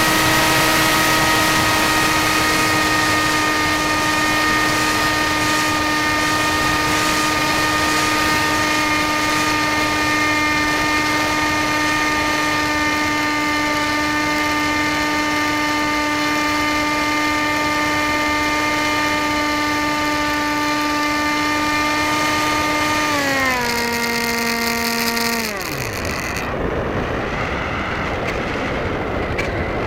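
Electric motor and propeller of a HawkSky RC plane running at a steady high whine, then stepping down in pitch twice near the end and spinning down as the throttle is cut, leaving a steady hiss.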